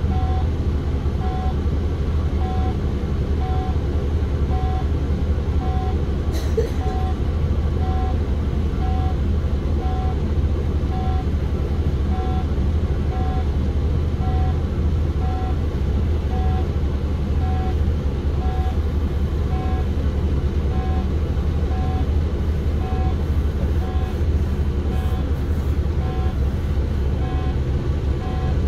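City bus engine running steadily, heard from inside the bus as a low rumble. A short beep repeats about every 1.3 seconds throughout, and there is a single click about six seconds in.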